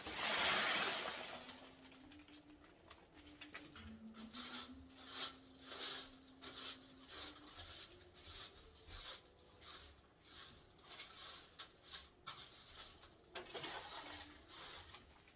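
Whisk broom sweeping seed and nut shells off a parrot cage floor into a dustpan: a brushing swish at the start, then scattered light scrapes and taps.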